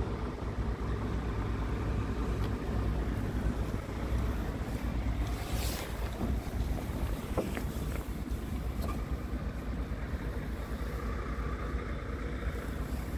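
Scania P truck's diesel engine idling steadily, heard from inside the cab, with wind on the microphone and a few light handling clicks.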